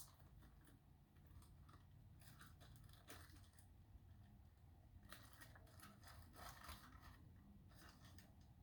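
Faint, scattered clicks and rustles of small brass lock pins and their small plastic kit bags being handled while pinning a lock core.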